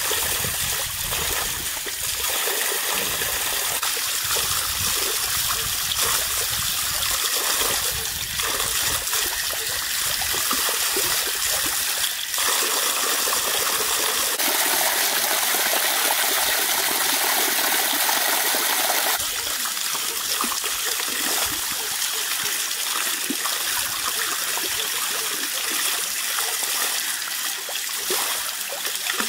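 Water pouring steadily from an outdoor standpipe tap and splashing over hands and leafy greens as they are rinsed under it. About twelve seconds in, the pour gets louder and fuller for about seven seconds, then drops back.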